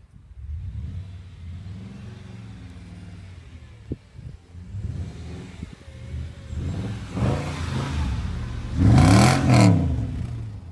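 Mercedes W211 E500's V8 engine revving and accelerating, building up to its loudest about nine seconds in, where the pitch swings up and down, then easing off.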